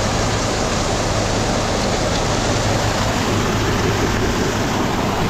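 Grain-cleaning setup running: augers and a seed cleaner moving canola and screenings, a steady rushing noise over a low, even machine hum.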